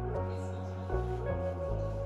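Soft background music: sustained bass notes and gentle melodic tones, with the chord changing about halfway through and again near the end.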